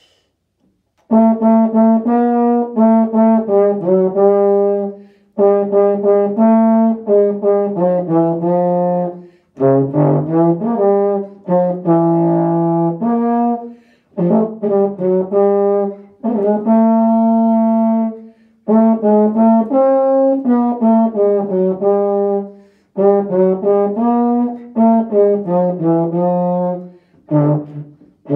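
Solo euphonium playing a melody in F major, starting about a second in, in phrases of separate tongued notes broken by short pauses for breath, with no accompaniment.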